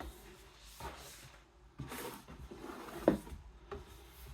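Vinyl records in their sleeves and a book being put back into a cardboard box set: card and paper sliding and rubbing, with a few light knocks, the sharpest about three seconds in.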